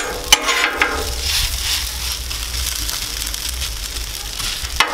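Shredded hash browns sizzling on a hot Blackstone flat-top griddle, with metal spatulas scraping and clicking on the steel plate a couple of times near the start and again near the end.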